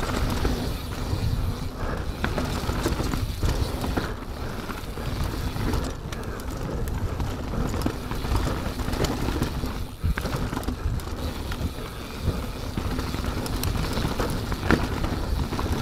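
Mountain bike descending a dirt trail: tyres rolling over roots and rocks, with frequent short knocks and clatter from the bike, over a steady low rumble.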